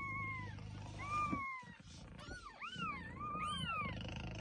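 Newborn kitten mewing: a quick run of about six high, thin cries, each rising then falling in pitch.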